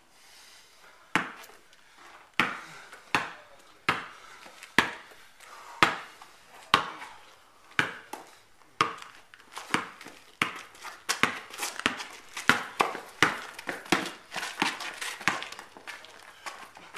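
Basketball being dribbled on a paved driveway: sharp bounces about once a second, then from about halfway through quicker and more irregular bounces as the play speeds up.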